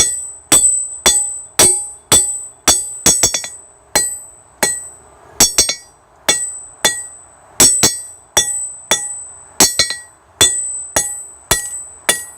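Hand hammer striking a hot titanium bar on an anvil, about two blows a second in a steady rhythm, each blow leaving a high, bright ring; now and then two blows come in a quick pair.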